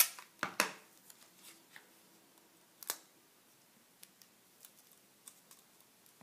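Tape pulled from a handheld tape dispenser and torn off on its cutter: a sharp snap at the start, two more about half a second in, and another near three seconds. Between them come faint ticks and rustles of tape being pressed onto paper.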